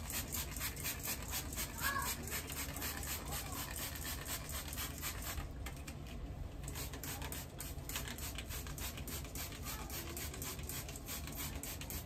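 Plastic trigger spray bottle squeezed rapidly, about five short sprays a second, misting water onto hair to wet it. The spraying breaks off for about a second midway, then resumes.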